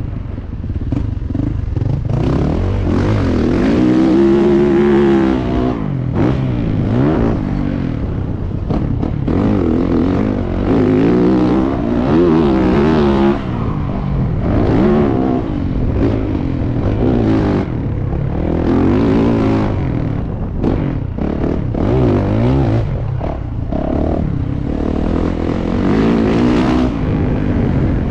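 Motocross bike engine revving hard and easing off over and over, its pitch rising and falling every second or two as the rider accelerates, shifts and backs off.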